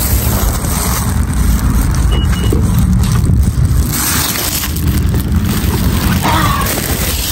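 Handling noise and wind rumble on a hand-held phone's microphone as it is carried: a loud, uneven low rumble with rubbing and scraping.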